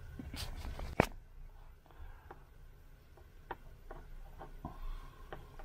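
Nylon paracord being worked and pulled tight through a Turk's head knot by hand: scattered faint ticks and rubs, with one sharp click about a second in.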